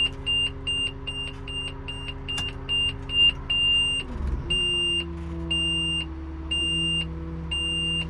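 A warning beeper in the lifting machine's cab, sounding about three short beeps a second at first and then slowing to about one longer beep a second halfway through. Under it the machine's engine runs steadily under lifting load, its note dropping about halfway through.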